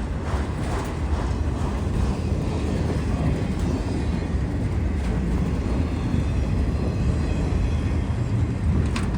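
Freight train cars rolling past, with a steady rolling noise of steel wheels on the rails. A single sharp click comes near the end.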